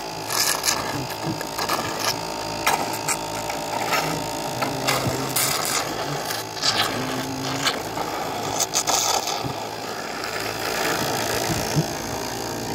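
Small electric motor humming steadily, with scattered short crackles and scrapes as the honey pots are poked open.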